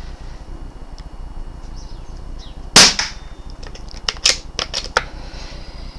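A single shot from a BSA R10 PCP air rifle firing a slug, a sharp crack almost three seconds in, followed about a second later by a quick run of sharp clicks.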